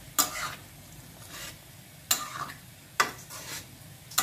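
Metal ladle stirring chickpea curry in a metal kadai, clacking sharply against the pan four times, with a soft scrape between the clacks.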